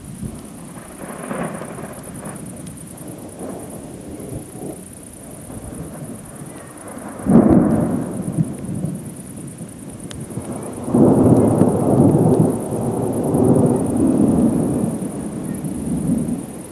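Thunder from a thunderstorm: a sudden loud clap about seven seconds in, then a long rolling rumble from about eleven seconds until near the end, with fainter rumbles before.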